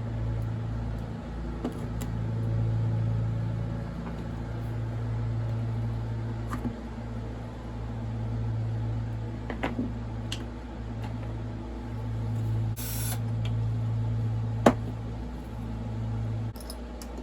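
A low, steady motor-like hum running in stretches of a few seconds with short breaks, stopping near the end, with a few sharp clicks of tools on metal and a short hiss about 13 seconds in.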